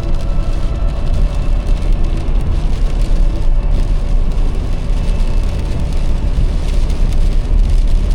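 Blizzard wind buffeting the microphone with a loud, steady low rumble, and a hiss of wind-driven precipitation over it.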